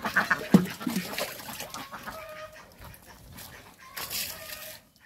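Domestic poultry calling: a quick run of repeated calls at the start, then scattered short calls. A single sharp knock sounds about half a second in.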